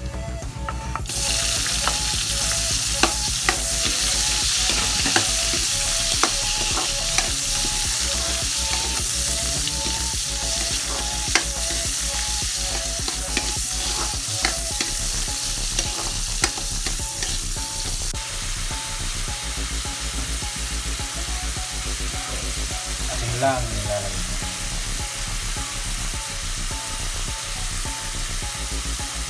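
Garlic and sliced onions frying in hot oil in a metal wok, a loud steady sizzle that swells sharply about a second in. A spatula stirs them, clicking and scraping against the wok.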